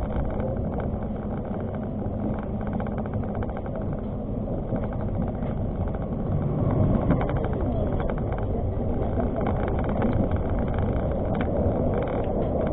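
Argo Parahyangan passenger train running on the rails: a steady rumble with scattered light clicks.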